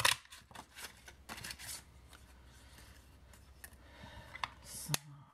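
A handheld butterfly paper punch snaps through white cardstock with one sharp click at the start, followed by light rustling and sliding of card as the punched piece is handled.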